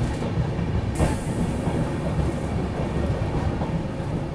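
Express passenger train's coaches running along the rails as it pulls into a station platform, a steady low rumble heard from the coach doorway, with a short hiss about a second in.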